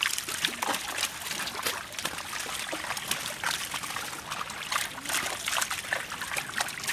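Water trickling and splashing in a busy run of small, irregular splashes and drips.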